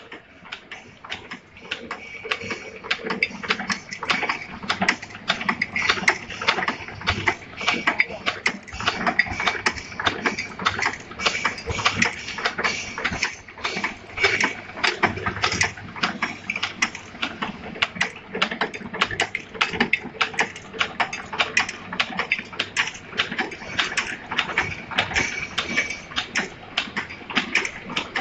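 Axial-lead cutting, bending and kinking machine running, feeding taped resistors and diodes through its cutters: a steady, rapid mechanical clatter of clicks and snips, with a thin steady tone beneath.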